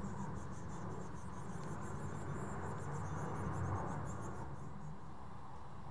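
Distant Boeing 737-800 airliner's jet engines rumbling on approach, swelling slightly about four seconds in. Over it runs a rapid high-pitched ticking that stops about five seconds in.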